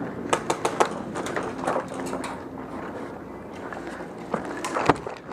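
Outdoor airsoft field sound: a player's footsteps and gear rustling on dusty ground, with scattered sharp clicks and snaps throughout. The loudest snaps come in the first second and near the end.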